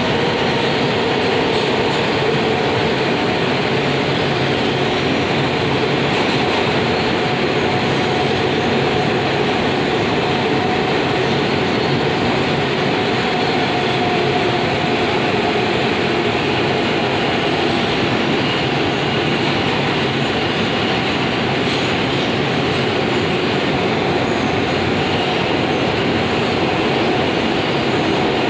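Inside an R160A New York subway car running through a tunnel: a steady, loud rumble of wheels on rail, with a faint steady whine running underneath.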